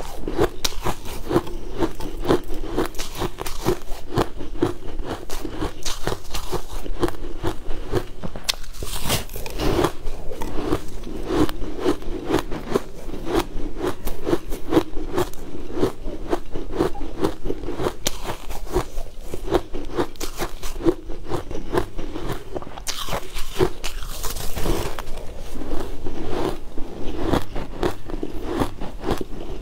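Blue ice being bitten and chewed close to the microphone, a dense, rapid crunching and crackling. Two longer crushing crackles stand out, about nine seconds in and again around twenty-three seconds in.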